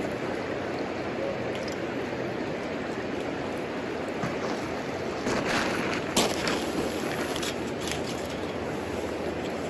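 Wood fire burning in a homemade wood stove, giving a few sharp crackles and pops over a steady rushing noise; the loudest pop comes about six seconds in.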